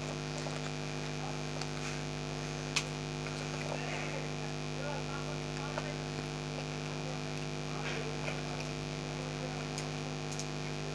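Steady electrical mains hum, with faint rustling of wires being handled and one sharp click about three seconds in.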